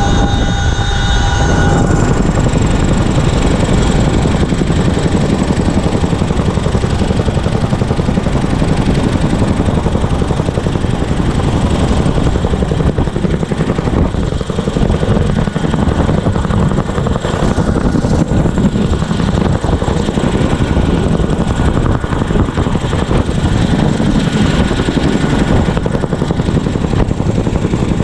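CH-47F Chinook tandem-rotor helicopter in flight, heard at an open cabin window: a loud, steady rush of rotor and twin turbine-engine noise with air buffeting the microphone. A cluster of thin high whining tones drops away about a second and a half in, and a fainter high whine stays underneath.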